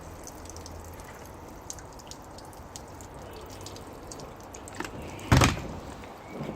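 A single sharp thump about five seconds in, the loudest sound here, with a smaller knock just before it and another near the end, over faint scattered light ticks.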